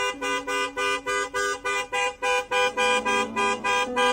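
Background music of short, honking, horn-like notes repeating about four times a second over a held lower note.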